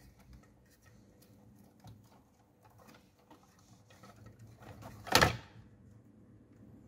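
Faint rustling and clicking of plastic wiring connectors and cables being handled, with one louder short knock about five seconds in.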